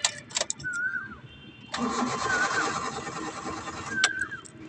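A few clicks, then a Hyundai Eon's starter cranking the engine for about two seconds without it catching, and stopping. It cranks but won't start, with a P0335 crankshaft position sensor circuit fault.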